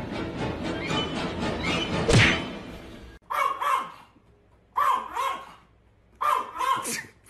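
Busy mixed noise with a loud thud about two seconds in, cut off abruptly; then a dog barking, three quick groups of two short barks with short silences between.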